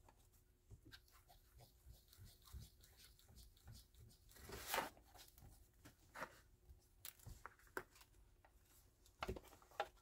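Faint rustling and rubbing of paper as ink is worked onto its edge with a foam ink-blending tool, with one louder scuff about halfway through and a few light taps later.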